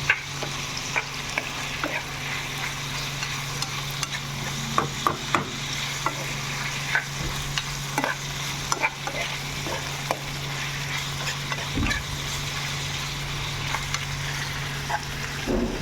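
Food sizzling as it fries in a pan, a steady hiss with scattered sharp clicks from a utensil being stirred, over a steady low hum.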